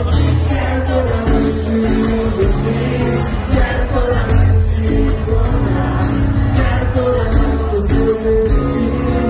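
Live band music: a man singing a pop ballad over acoustic guitar, with a steady bass and beat behind him.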